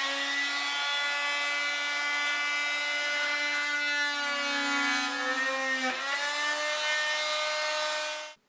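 Oscillating multi-tool running at a steady high buzz while cutting an outlet opening in a thin cedar plank. Its pitch sags briefly under load about six seconds in, then it runs on and cuts off just before the end.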